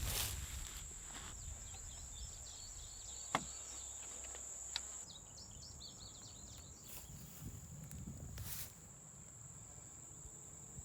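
Faint outdoor ambience: a steady, high-pitched insect drone throughout, with a few short bird chirps and two sharp clicks near the middle.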